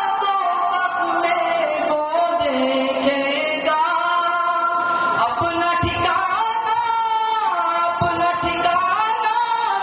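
A young man's solo voice singing a naat, drawing out long held notes that slide up and down between pitches in an ornamented melody.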